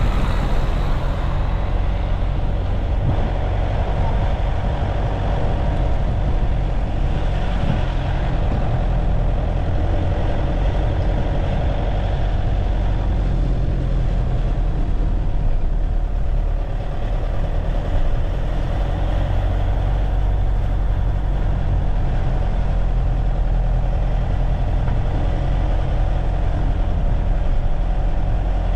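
A car being driven through town: steady engine and road noise, low and even throughout.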